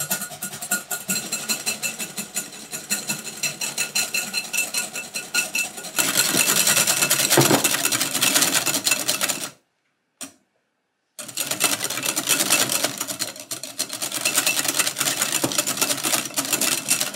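Wire balloon whisk beating cream in a glass bowl by hand, the wires rattling fast and steadily against the glass as the cream is whipped. It gets louder about six seconds in, stops for about a second and a half near the middle, then starts again.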